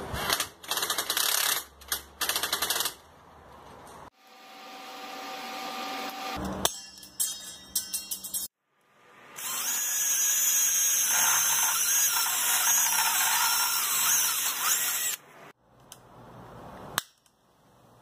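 A Bosch cordless driver running in several short bursts, tightening a bolt at the bike's rear dropout. About halfway through, a cordless drill with a step bit bores steadily through a metal flat bar for about six seconds, a thin high whine over the cutting noise. A few sharp clicks near the end.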